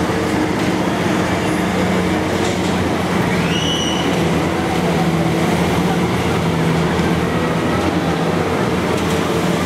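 Steady din of a busy fairground heard from a chairlift above it: a wash of crowd noise over a low, even machinery hum. A brief high squeal rises and falls about three and a half seconds in.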